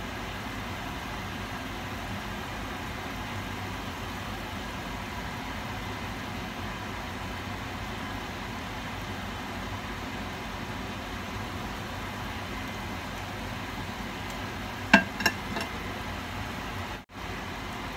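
Sesame-coated dough balls deep-frying in a pot of hot oil: a steady sizzle with a low hum beneath it. Two sharp clacks of the tongs against the pot come near the end and are the loudest sounds.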